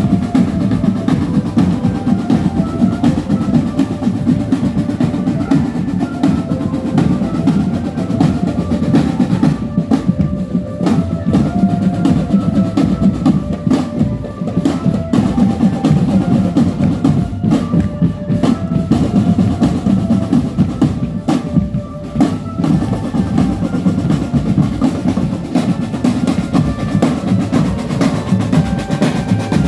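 Marching drum band playing on the move: snare drums rolling over bass and tenor drums, with a simple stepping melody above the drums.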